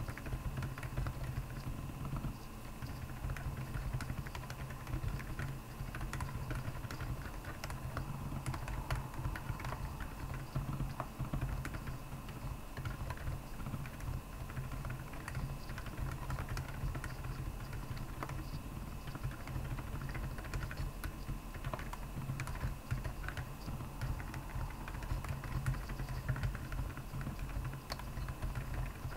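Continuous irregular typing on a Royal Kludge R75 mechanical keyboard fitted with Akko Penguin silent tactile switches, with a steady low hum underneath.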